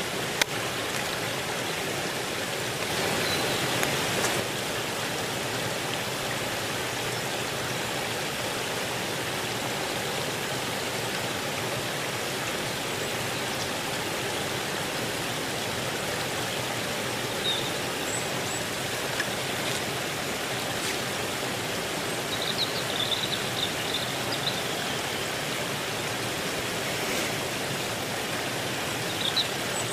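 Steady rushing of flowing water, an even hiss that holds its level throughout. A few short, high bird chirps come in over it during the second half.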